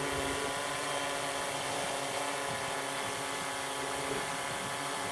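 Yuneec Typhoon Q500 4K quadcopter hovering on its stock OEM propellers: the four electric motors and blades give a steady, even multi-tone hum.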